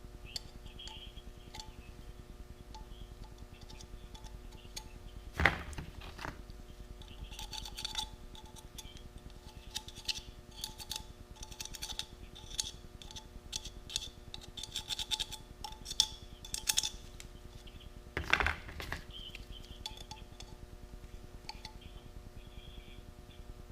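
Hand tools working the sheet metal of a chainsaw muffler: scattered small metallic clicks and clinks, with two louder sharp knocks about five and eighteen seconds in, over a faint steady hum.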